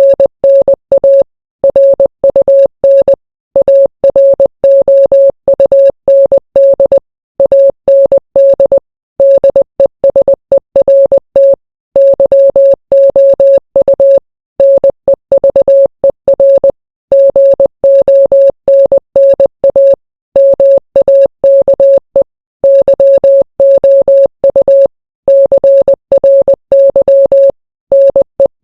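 Morse code sent as a single beeping tone, keyed on and off rapidly in short dots and longer dashes, with brief silent gaps between letters and words.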